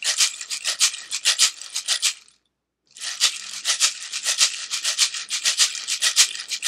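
A cactus-wood rain stick shaken back and forth like a shaker, its loose fill rattling against the pins inside in quick, even strokes of about six a second. There are two runs of strokes with a half-second pause between them, about two and a half seconds in.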